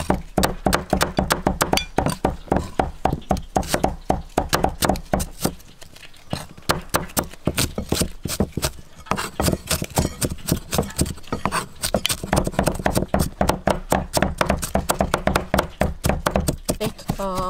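Steel cleaver chopping red onions on a thick wooden chopping block: rapid knocks of the blade into the wood, about four or five a second, slowing for a few seconds midway.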